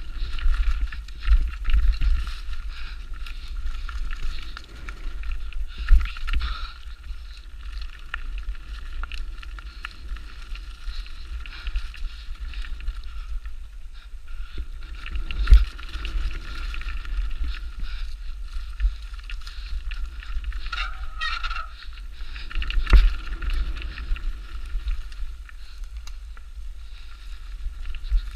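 Specialized Demo 8 downhill mountain bike ridden fast over rough trail: a steady rattle and rumble from the tyres, chain and suspension, with wind on the microphone. Heavy knocks from hard hits come about 6, 15 and 23 seconds in.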